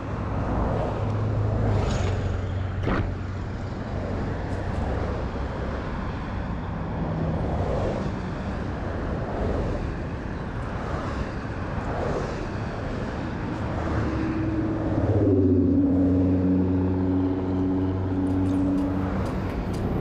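Motorcycle engine running on the road, its pitch rising and falling with the throttle.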